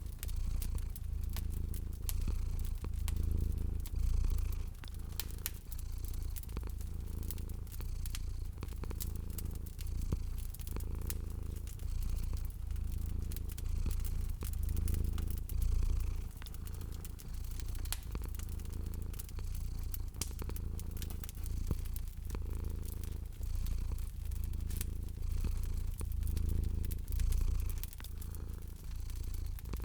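A cat purring in a steady low rumble that swells and eases every second or two, over the small sharp pops and crackles of a fireplace fire.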